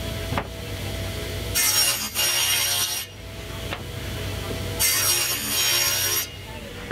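Plywood pieces sliding and scraping across the metal top of a table saw, twice, each scrape about a second and a half long, with a knock or two as the boards are set down.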